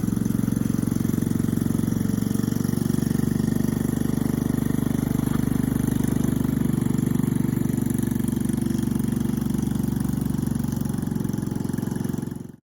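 Mini Jeep tug's small petrol engine running steadily with a rapid, even putter, then cutting off sharply near the end.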